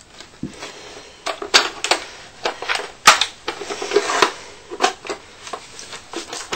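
A string of irregular sharp plastic clicks and knocks from a modded Nerf Longshot blaster being handled and readied to fire.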